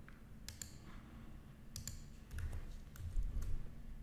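A few faint, sharp clicks from a computer mouse and keyboard, some in quick pairs. A couple of dull low thumps come about two and three seconds in.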